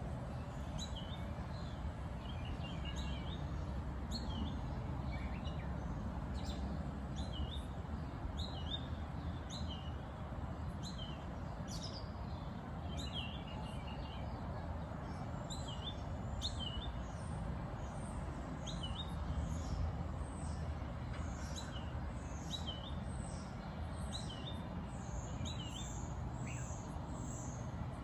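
Birds chirping: short, high notes sliding downward, repeated about once a second, with higher, faster calls in the last few seconds, over a steady low background rumble.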